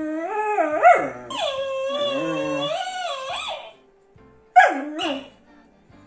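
A dog howling: long wavering howls that run together for the first three and a half seconds, then one short falling yowl about four and a half seconds in.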